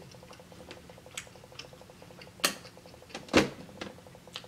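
Sounds of someone eating a steak meal: a few small clicks, then two louder knocks about two and a half and three and a half seconds in.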